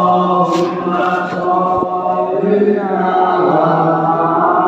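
A man chanting Islamic devotional praise in long held notes that step slowly up and down. A brief rustle of cloth brushes the phone about half a second in.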